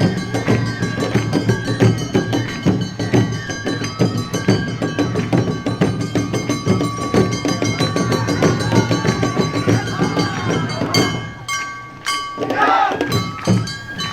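Awa Odori festival band playing a fast rhythm on drums and small hand gongs, with sustained tones above. The band stops about eleven seconds in, and voices follow near the end.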